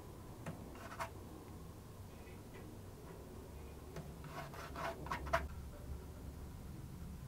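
Soft handling sounds of a fine brush and fingers on a cello's varnished rib while the repaired crack is retouched: a couple of light clicks about a second in, then a short bout of rubbing and tapping in the middle, over a faint low hum.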